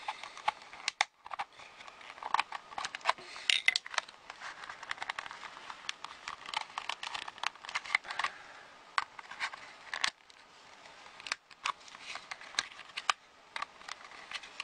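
Plastic case of a laptop charger being pried open along its seam with a flathead screwdriver: irregular sharp clicks and cracks of the plastic, with scraping of the blade.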